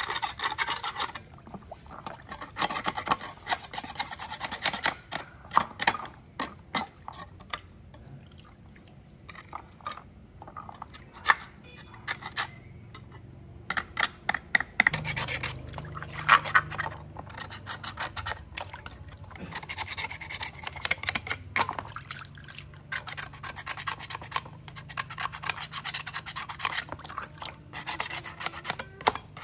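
Metal putty knife scraping grime and rust off metal binocular parts in soapy water, in quick irregular strokes, alternating with scrubbing by a scouring pad. A faint low hum sets in about halfway.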